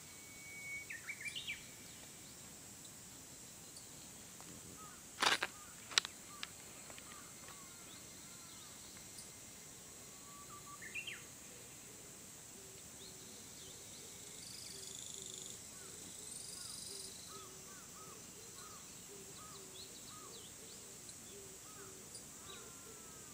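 Birds chirping and calling in mountain woodland at dawn, faint over a steady high-pitched hiss. Two sharp clicks come about five and six seconds in. In the second half, a run of short calls repeats about twice a second.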